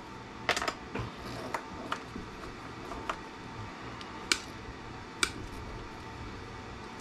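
Diagonal cutters snipping and clicking on the thin wires and plastic inline fuse holders of a power cord: a scattering of sharp clicks, the two loudest about four and five seconds in, over a faint steady hum.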